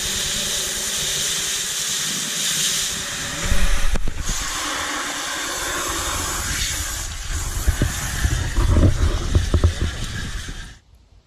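Garden hose spraying water into a cast-iron wood-fired cooking pot, a steady hiss. Low bumps and knocks come through in the second half.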